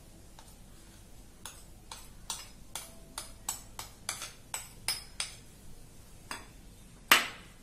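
Metal spoon tapping again and again against the rim of a plastic mixing bowl and a paper cup, knocking flour loose, about two to three taps a second. One much louder knock near the end.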